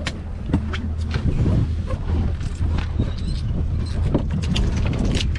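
Boat engine idling with a steady low hum, with scattered sharp clicks and knocks over it.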